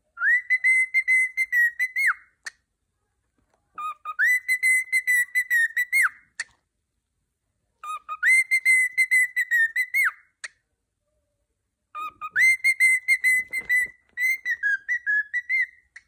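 Grey male cockatiel whistling the same phrase four times, each about two seconds long. Each phrase is a short low note that jumps to a high held whistle with a slight waver and ends in a quick downward flick.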